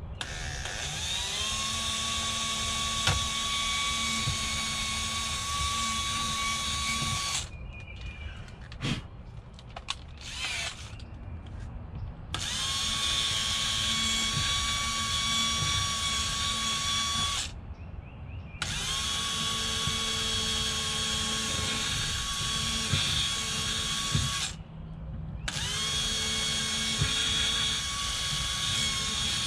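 Cordless drill running in four runs of several seconds each. Each run starts with a short rising whine as the motor spins up, then holds a steady pitch while mounting holes in a boat's deck are drilled out larger. A few clicks and knocks come in the pause after the first run.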